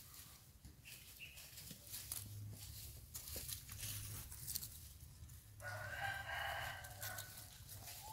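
A rooster crows once, a single call of about a second and a half in the latter half, over faint scattered rustling and clicking.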